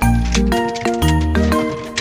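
Background music with a steady beat, a melody and a bass line.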